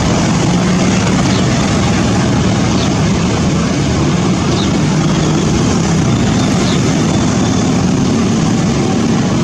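A waterfall in flash flood: a steady, loud roar of rushing water that does not let up.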